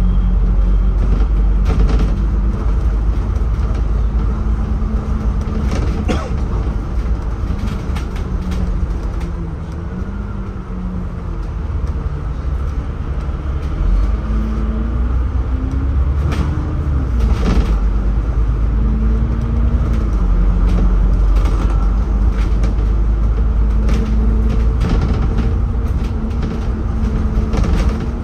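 City bus heard from inside the cabin while under way: a steady low engine rumble with a hum that rises and falls in pitch, and scattered rattles and clicks.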